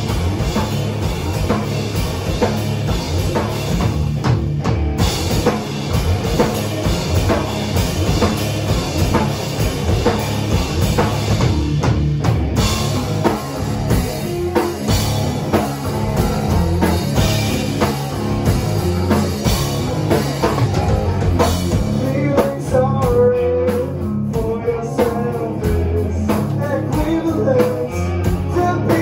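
Live rock band playing loud: electric guitar, electric bass and drum kit together, with a stepping melodic line over the top near the end.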